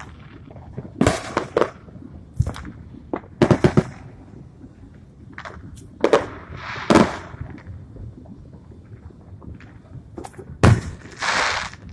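Fireworks going off: a series of sharp bangs at uneven intervals, with several in quick succession about three and a half seconds in. Near the end comes a loud bang followed by about a second of hiss.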